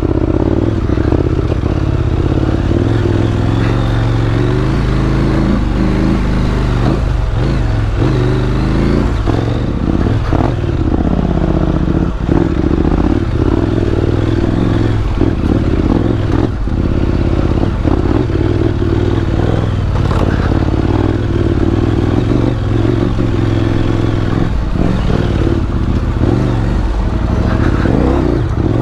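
KTM 790 Adventure R's parallel-twin engine running at low to moderate revs, rising and falling in pitch as the throttle is worked, with frequent knocks and clatter as the bike rides over rocky trail.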